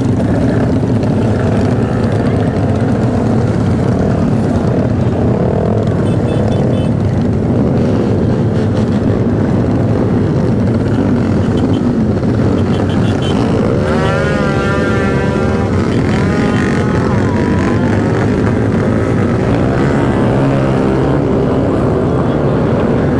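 Many motorcycle engines running and revving together in a dense slow-moving pack, loud and continuous. A warbling siren-like tone sounds for about two seconds around the middle.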